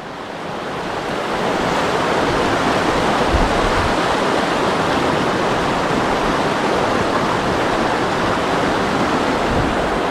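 Creek water rushing, a steady loud hiss that swells over the first second or two and then holds.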